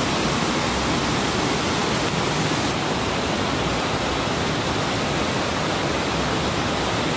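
Underground cave stream cascading over stepped rimstone ledges: a steady, loud rushing of falling water, the stream running a little high.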